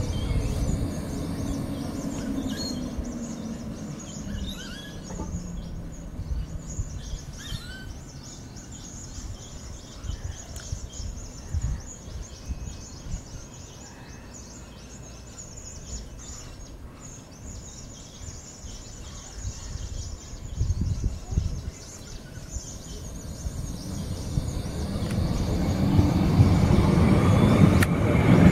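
Bombardier Flexility Classic light-rail tram braking into a stop, its motor whine falling in pitch over the first few seconds. Then a quieter stretch with birds chirping, and the tram pulls away past the microphone, its motor and wheel noise building to the loudest near the end.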